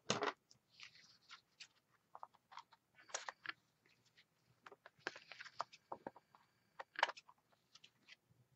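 Card stock and adhesive strips being handled: faint, scattered paper rustles, crinkles and small taps, with the loudest rustle right at the start and others about three, five and seven seconds in.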